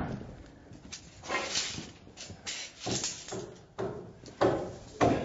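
Irregular series of knocks and clacks as steel rebar is handled and set into the plastic rebar clips of foam ICF blocks, each knock with a short fading tail.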